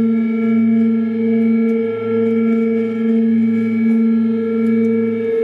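Electric guitar through effects pedals holding one sustained droning note, rich in overtones, that slowly swells and fades every second or two.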